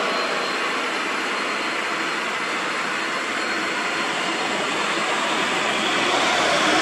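Heavily loaded Nissan Quester tractor unit and low-bed trailer rolling past close by: steady engine running under the rush of many tyres on the road.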